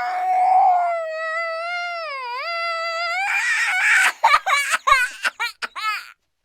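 A high-pitched, childlike voice crying: one long held wail that dips in pitch near the middle. About three seconds in it breaks into quick sobbing gasps, then stops abruptly about six seconds in.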